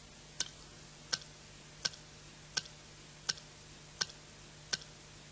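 Faint, steady, evenly paced ticking, about seven ticks at a little under one and a half a second, over a faint low hum.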